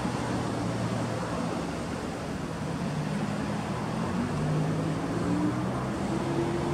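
Steady rushing background noise with a low engine hum whose pitch drifts slightly upward a few seconds in.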